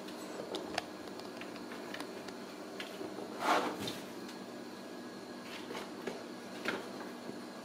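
Ragdoll kittens scampering on a tile floor and batting against cardboard scratchers in plastic frames: light taps and scuffles, with one louder scuffle about three and a half seconds in, over a steady low hum.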